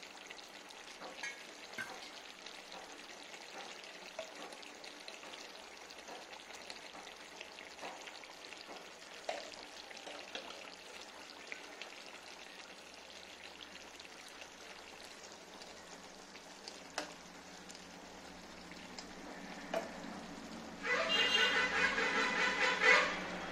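A spoon stirring and lifting cooked biryani rice in a large aluminium pot over a low sizzle, with a few light taps of the spoon on the pot. Near the end, a much louder burst with a steady pitch lasts about two seconds.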